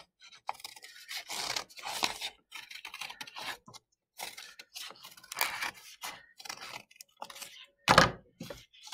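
Scissors snipping through folded black construction paper in a series of irregular cuts, with paper crunching and scraping between the blades. A louder thump about 8 seconds in.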